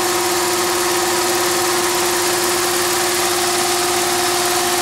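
BYC sugar coating machine running: its pan drive motor, on an inverter speed control, gives a steady hum with a hiss and one held tone. A second, higher tone comes in about three seconds in while the speed knob is being turned.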